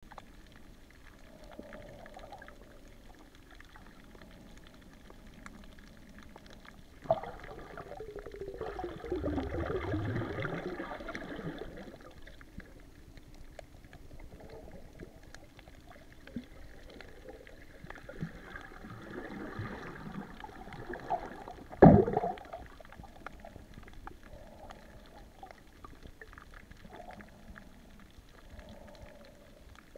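Muffled underwater sound of water moving around the camera, with two longer stretches of gurgling and a single sharp knock partway through.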